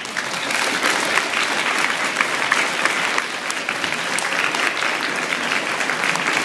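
Audience applause that breaks out all at once and then holds steady: a dense patter of many hands clapping.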